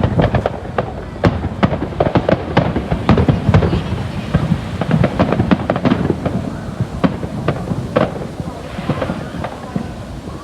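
Fireworks going off in a rapid, continuous barrage of sharp bangs and crackles, thinning to scattered bangs in the last few seconds.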